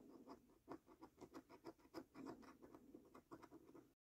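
Coin scratching the coating off a paper scratch card, a faint run of short quick scrapes, several a second, that cuts off suddenly just before the end.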